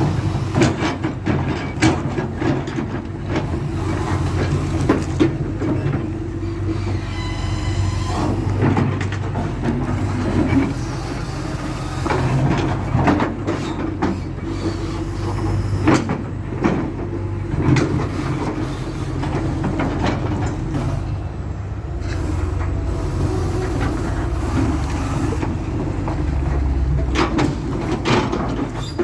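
Excavator engine running steadily while the bucket breaks up asphalt, with repeated clanks and knocks of steel on broken pavement. A brief high metallic squeal about seven seconds in.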